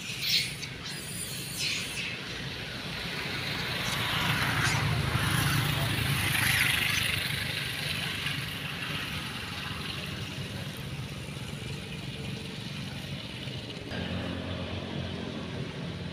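A motor vehicle passing, its engine hum swelling about four seconds in and fading away again, with a couple of sharp clicks near the start.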